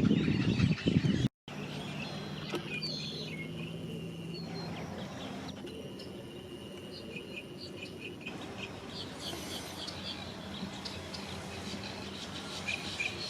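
Wild birds chirping, many short high calls overlapping over a faint steady low hum. For the first second or so a louder low rumbling noise covers them, then it cuts off abruptly.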